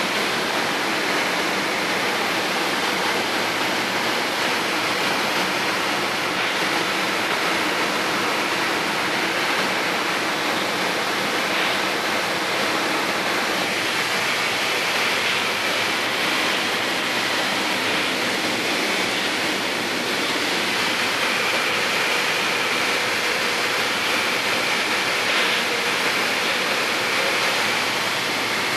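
Steady cabin noise of a Piper Tomahawk in flight: its Lycoming O-235 engine, propeller and rushing airflow blend into one even, unbroken hiss.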